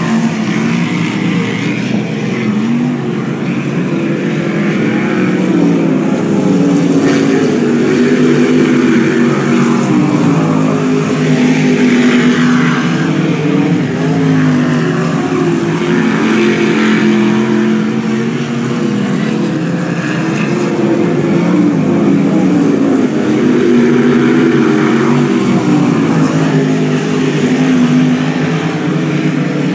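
A pack of non-wing sprint cars racing on a dirt oval, several V8 engines revving up and backing off as they go through the turns. The engine notes keep rising and falling and the sound stays loud throughout.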